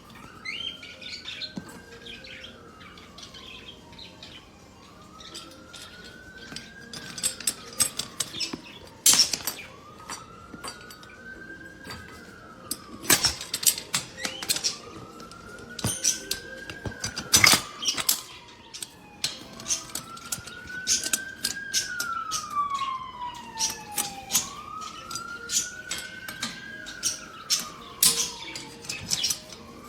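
Pet bird making sharp, scattered chirps and squawks. Beneath them runs a siren-like wail that rises and falls slowly, repeating about every four to five seconds.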